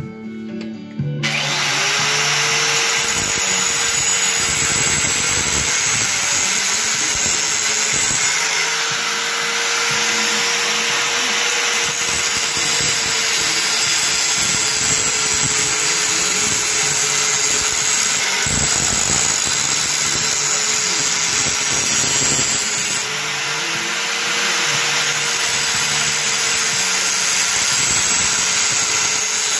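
Skil angle grinder starting up about a second in and running steadily, its abrasive disc grinding the edge of a steel splitting maul with a constant whine that dips now and then.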